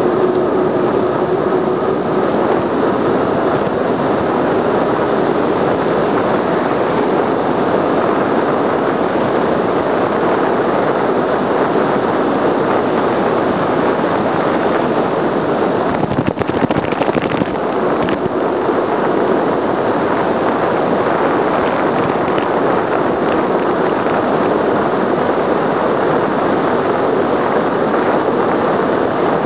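Wind rushing hard over the microphone of a bike-mounted camera on a fast road-bike descent, a steady loud noise. There is a brief cluster of knocks a little past the middle.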